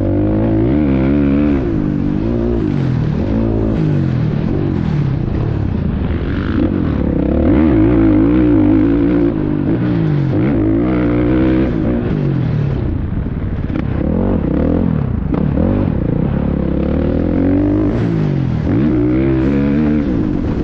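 Two-stroke motocross bike engine being ridden hard, its pitch rising and falling again and again as the rider throttles up and backs off around the dirt track.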